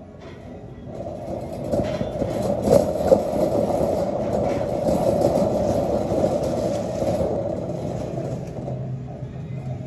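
Wire shopping cart being pushed across a hard store floor: a steady rolling rumble and rattle from its wheels and metal basket, with a few sharp knocks about two to three seconds in. The noise builds over the first second or two and eases off near the end.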